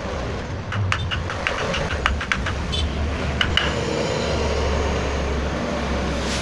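A run of light, irregular knocks and clicks from handling work pieces or tools. About four seconds in, an electric motor starts running with a steady low hum.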